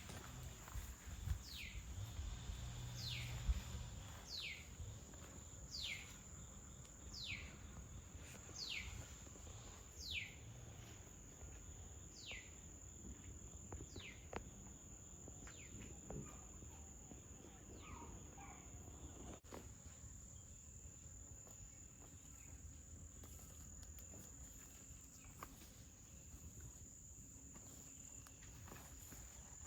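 Insects droning steadily at a high pitch, with a run of about a dozen short downward-sliding calls, roughly one a second, through the first half or so. Low rumbling and a few knocks near the start.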